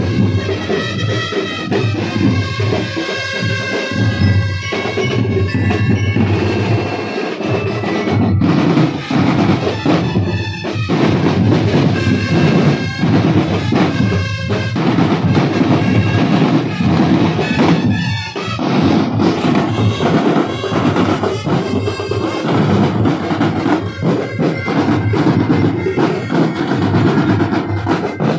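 A marching drum corps playing a loud, continuous drum cadence on snare and tenor drums, with a pitched melody ringing over the drums in the first few seconds.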